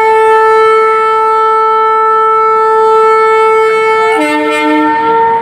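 Indian Railways WAP-7 electric locomotive's horn sounding one long steady blast, with a second, lower note joining briefly about four seconds in.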